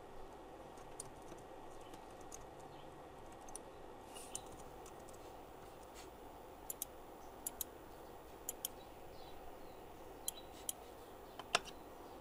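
Computer keyboard and mouse clicking as values are typed into fields: about a dozen light, irregular clicks over a faint steady hiss, the sharpest one near the end.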